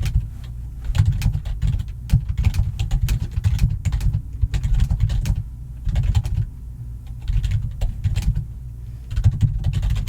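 Fast typing on a computer keyboard, loud, in bursts of a second or two with short pauses between; each keystroke is a sharp click over a deep thud.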